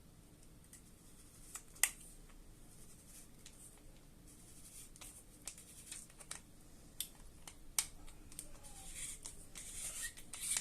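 Light metallic clicks and scraping of a key tool working a threaded aluminium gas-magazine base cap loose, a sharp click about two seconds in and a run of faint scraping near the end.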